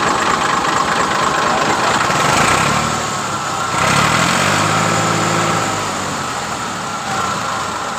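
Massey Ferguson 240 tractor's three-cylinder Perkins diesel idling steadily, an engine the owner says is tight with no blow-by.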